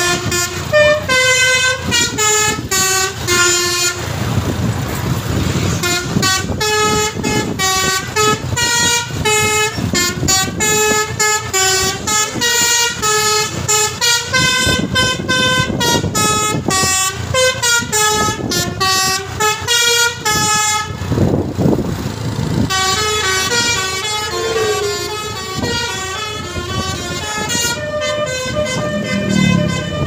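Basuri 'telolet' musical horn on a coach bus playing a melody of quick stepping notes, pausing briefly twice with traffic noise in the gaps.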